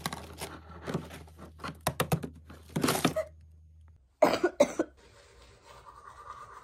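A sick woman coughing: a hard burst of three coughs about four seconds in, the loudest sounds here. Before it, laundry rustling and knocking as it is pulled from a machine drum over a low steady hum.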